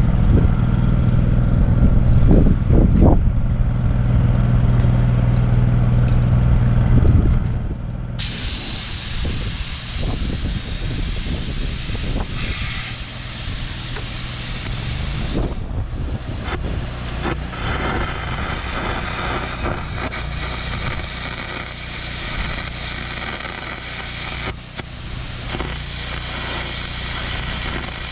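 Air carbon-arc gouging of old welds on a steel loader bucket. A machine hums steadily for the first few seconds. About eight seconds in, a loud hiss of compressed air from the gouging torch starts suddenly, with the arc crackling as it cuts out the weld metal.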